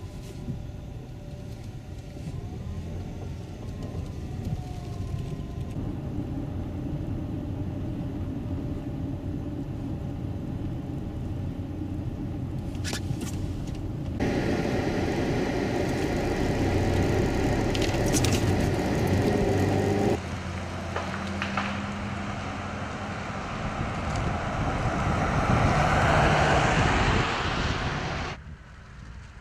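Car driving on a road: steady engine and tyre rumble, in several clips that cut abruptly from one to the next. The loudest stretch is a rising rush of noise near the end that stops suddenly.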